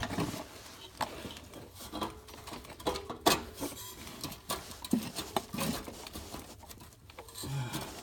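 Steel exhaust coupler being worked by hand onto a 2-inch exhaust pipe: irregular metal scrapes, taps and light knocks as it is pushed and twisted into place.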